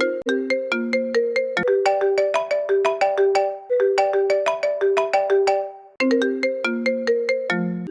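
Custom phone ringtone for an incoming call: a looping melody of short, quickly fading notes, about four a second. It breaks off briefly about four and six seconds in, then the phrase starts again.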